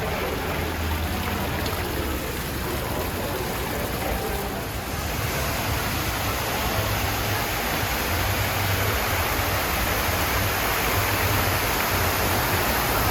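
Steady rush of spraying or falling water, growing a little louder and brighter about five seconds in.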